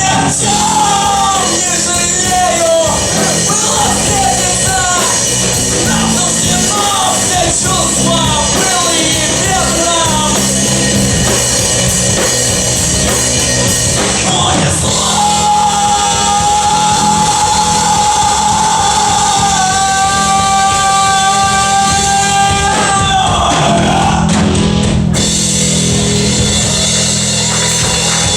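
Live rock band playing with a singer. About halfway through, a single long note is held for several seconds over the band.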